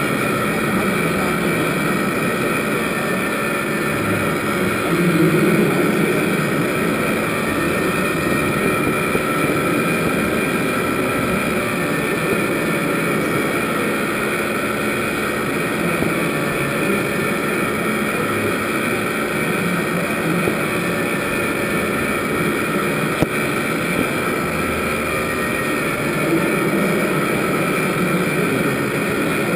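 A steady mechanical drone with faint, even whining tones above it, unchanging throughout, typical of small motors running.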